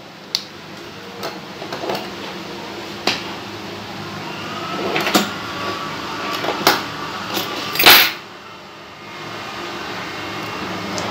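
Steel toenail nippers cutting into a thick, curled toenail: sharp snips and cracks at irregular intervals, the loudest one near eight seconds in.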